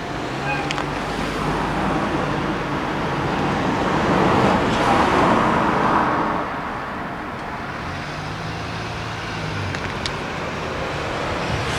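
Road traffic: a car drives past, its tyre and engine noise swelling to a peak about five seconds in and fading, with low engine hum from other vehicles before and after.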